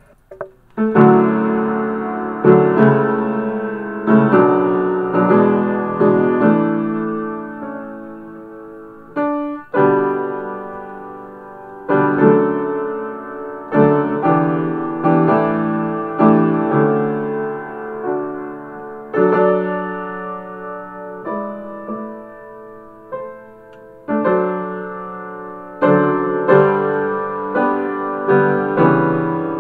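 Solo piano music: chords and notes struck one after another, each left to ring and fade before the next, starting about a second in.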